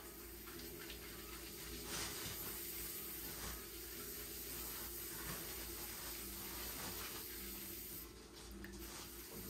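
Electric pottery wheel running with a steady hum, with wet sounds of clay and water being worked on the spinning wheel.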